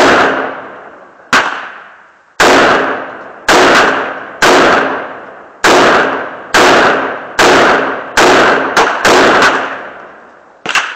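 AR-15 rifle firing a string of about a dozen single semi-automatic shots, roughly one a second and coming faster for a few shots near the end, each crack followed by an echoing tail.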